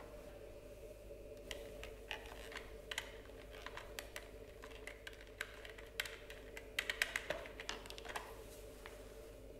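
Irregular plastic clicks and taps as hands handle a Dyson ball vacuum and turn the locking dial on its ball shell to release it, with a quick run of clicks about seven seconds in. A faint steady hum lies underneath.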